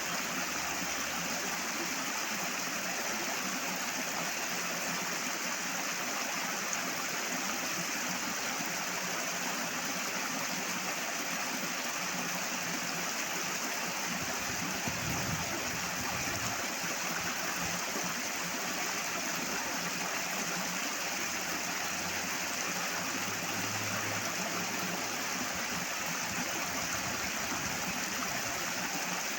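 Flowing water rushing steadily and loudly, an even unbroken rush with some gurgling.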